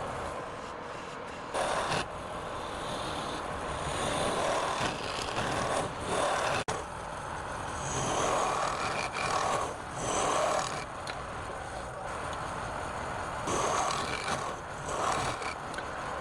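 Wood lathe running while a turning tool cuts into the spinning wood. The cutting noise swells and fades with each pass of the tool, and there is a brief dropout about six and a half seconds in.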